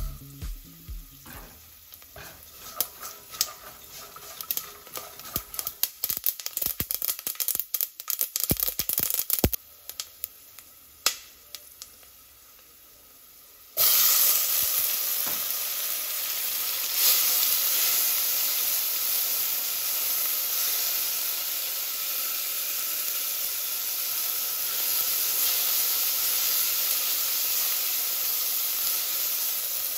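Sesame seeds and peanuts crackling in hot oil in a pot, with many sharp, irregular pops. About halfway through, chopped tomato hits the hot oil and a sudden loud, steady sizzle takes over.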